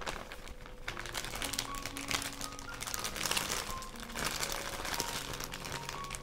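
Clear plastic zip-top bag crinkling as hands pull it open and spread it out, over background music with held notes.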